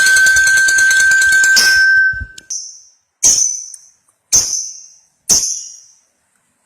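Lovebird giving a long, rapid, high-pitched chattering trill (ngekek) that stops about two and a half seconds in, followed by three single sharp chirps about a second apart.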